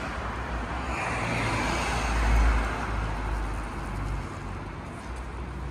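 Street traffic: a car passing on a wet road, its tyre hiss and low rumble swelling to a peak about two and a half seconds in, then fading.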